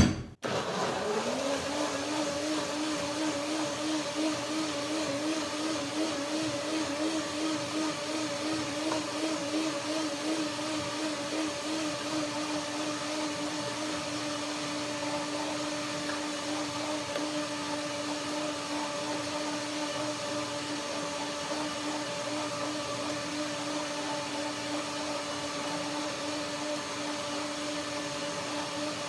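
Countertop blender running with a jar of nectarines, cashews and orange juice: the motor spins up in pitch within the first second, then runs continuously. Its pitch wavers at first while the nuts and fruit are being broken down, then holds steady as the mixture turns smooth and creamy.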